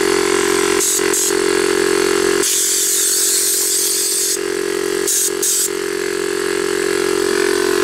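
Homemade 12-volt air compressor, a small direct-drive 12 V pump on an old compressor tank, running with a steady drone. Compressed air is let out of a handheld air nozzle in short hisses about a second in and around five seconds in, and in one longer hiss of about two seconds starting two and a half seconds in, while the drone drops away.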